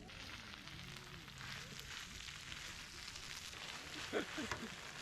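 Rice and seasoning sizzling in a hot pan, a steady frying hiss, with a few sharp clicks about four seconds in.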